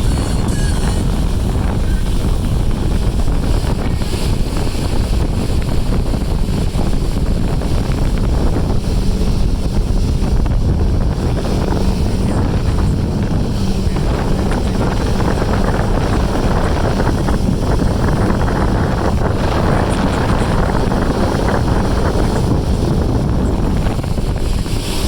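Motorboat running steadily at speed, its engine drone mixed with wind buffeting the microphone.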